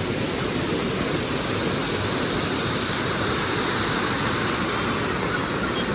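Waterfall's falling water, a loud, steady rushing noise.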